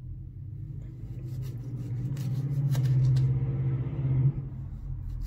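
A low, steady motor hum swells to its loudest about three seconds in and drops off a little after four. Over it come a few light knife taps on a wooden cutting board as a lemon is sliced.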